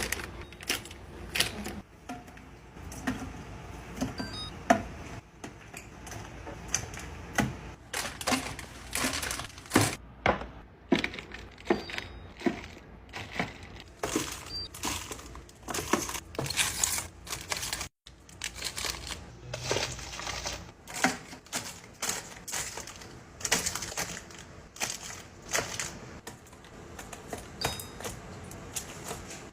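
Items being put into a refrigerator: a continual irregular series of clicks, taps and clinks as containers are set down and arranged.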